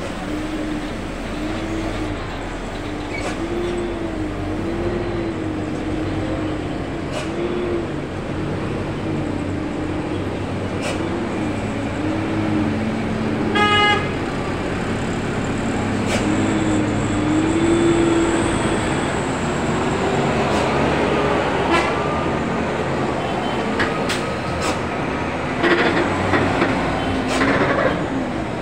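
Heavy trucks' diesel engines labouring around a steep hairpin bend, their pitch rising and falling as they take the turn. A short horn toot sounds about halfway through, and there are a few brief hisses near the end.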